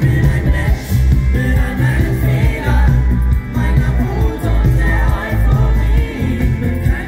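Live German pop song played by a full band over a concert PA, with heavy bass and a male lead singer, heard from the crowd.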